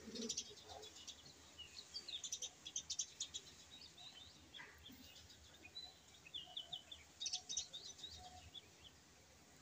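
Faint background chirping of small birds, in scattered short clusters of high chirps and quick falling notes.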